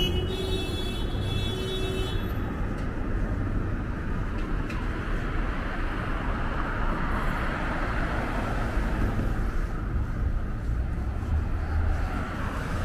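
Steady street traffic: cars going by with tyre and engine noise and a low rumble.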